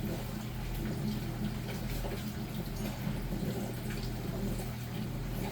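Steady low hum under an even hiss of background noise, with no distinct events.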